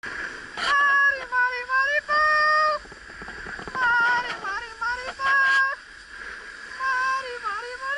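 A person singing or calling in drawn-out, wordless high notes that hold and slide up and down, several times, over the steady rushing hiss of skiing.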